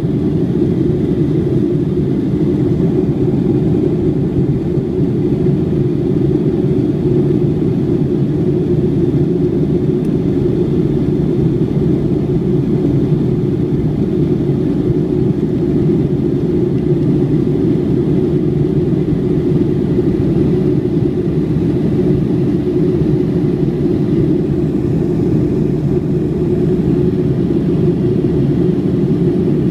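Steady drone of a Boeing 757-200's engines and airflow heard inside the passenger cabin, a low, even rumble that does not change.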